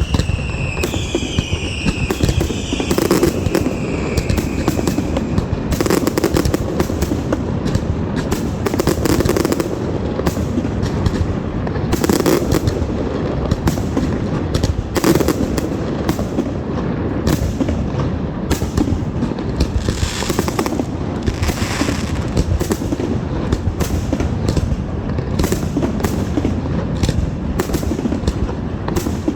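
Fireworks display: a dense, unbroken barrage of booms and crackling bursts over a constant low rumble, with several high whistles falling in pitch during the first few seconds.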